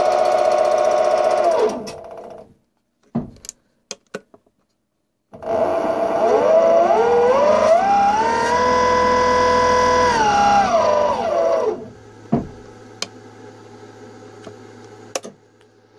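Motenergy brushless DC boat motor and its reduction gearbox whining as it runs. The pitch falls and it stops about two seconds in. About five seconds in it spins up again, rising in steps to a steady pitch, holds, then winds down and stops near twelve seconds, leaving a low hum with a few clicks.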